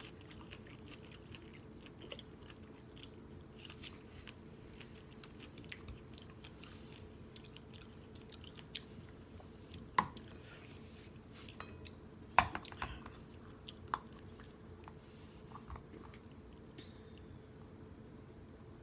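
Close-miked mouth sounds of someone eating strawberries with vanilla yogurt: wet chewing and lip smacking with scattered clicks. A few smacks stand out louder, about ten, twelve and a half and fourteen seconds in.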